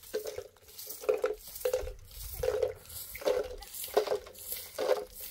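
Hand broom sweeping bare dirt and gravel ground: about eight swishing strokes in a steady rhythm, one every three-quarters of a second or so.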